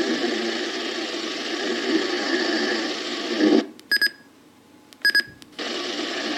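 Steady static-like hiss that cuts out for about two seconds midway. In the gap, two pairs of short high-pitched electronic beeps sound about a second apart, and then the hiss returns.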